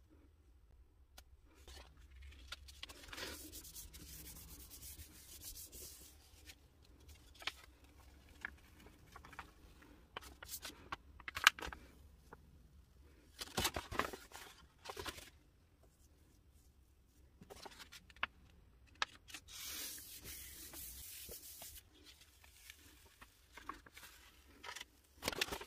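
A hand rubbing a sheet of printing paper down over a gel printing plate, in two stretches of soft steady rubbing, with paper crinkling and rustling in between as prints are laid down and peeled off.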